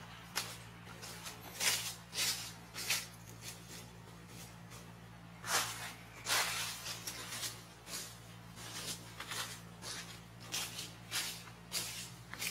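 Dry leaf litter rustling and crackling in short, irregular bursts as monkeys move about on it, over a low steady hum.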